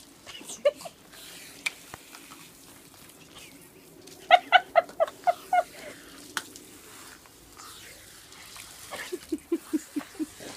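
Small dog giving two runs of short, quick yaps while snapping at the spray from a garden hose nozzle: about six higher yaps near the middle and about seven lower, falling yips near the end, with the hose spraying faintly throughout.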